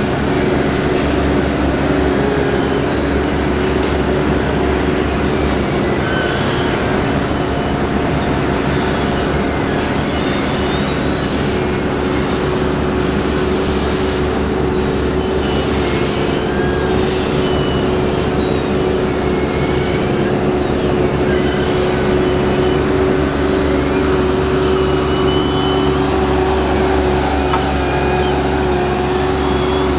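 Heavy diesel machinery at asphalt paving roadworks running steadily at a constant pitch, with scattered short high chirps and squeaks over it.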